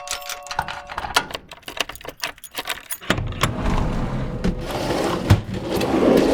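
Door sound effects: a quick run of sharp rattling clicks of door hardware for about three seconds, then a steady rumbling scrape with a single thud a little past five seconds in.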